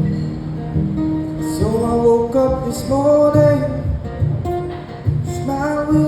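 Acoustic guitar strumming with a woman's voice singing wordless vocal runs over it, twice: once through the middle and again near the end.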